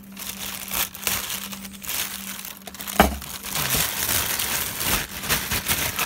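Grey plastic postal mailer crinkling and rustling as it is handled and opened by hand, with clear plastic zip bags rustling as the contents come out. A sharp crack of plastic about three seconds in is the loudest moment.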